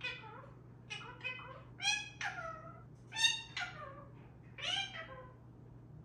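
African grey parrot calling and mimicking: a run of short, pitched calls about half a second to a second apart, several gliding down in pitch like meows, the loudest about three seconds in.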